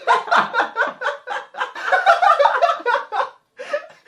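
People laughing in quick repeated bursts, breaking off briefly near the end.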